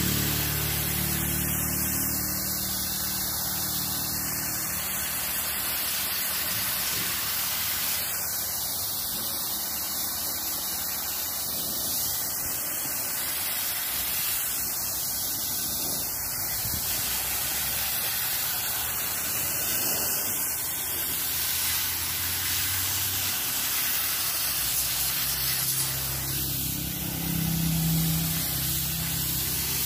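Steady hiss of a water jet from a hose nozzle spraying into the fins of a window air conditioner's coil, rinsing off foaming cleaner.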